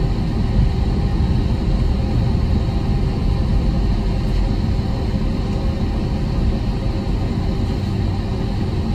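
Airbus A321's IAE engines running at taxi thrust, heard inside the cabin as a steady low rumble with faint steady tones above it, as the airliner rolls slowly along the taxiway.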